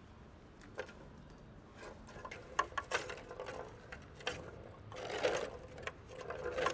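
Plastic ball rolling and rattling around the tracks of a tiered cat track toy as kittens bat it: irregular clicks and knocks that come thicker and louder from about two and a half seconds in.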